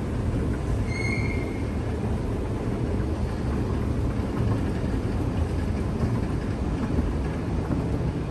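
Mitsubishi escalator running, heard from on the moving steps: a steady low rumble. A brief high-pitched tone sounds about a second in.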